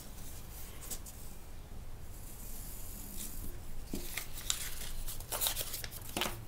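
Stiff Aida cotton cloth and a paper pattern rustling and sliding as they are handled. A soft sliding hiss comes a couple of seconds in, then a run of sharp rustles and ticks in the second half.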